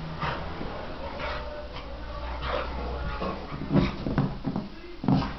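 A small dog rubbing and wriggling its wet body against couch upholstery and a blanket to dry itself after a bath: repeated scuffing and rustling of fabric, with small noises from the dog and a few heavier bumps near the end.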